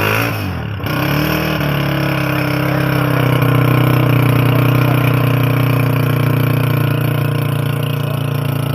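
Honda CG125's single-cylinder four-stroke engine: the revs drop away at first, then after a sudden change just under a second in it runs steadily.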